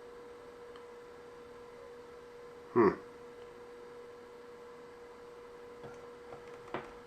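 A steady electrical hum on one tone, broken about three seconds in by a single short, loud knock, with a couple of faint clicks near the end.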